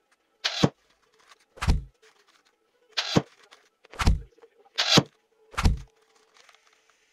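Six short thunks about a second apart as glass-headed pins are pushed one after another through taut fabric into a pin cushion in a wooden embroidery hoop on a wooden worktable. A faint steady hum runs underneath.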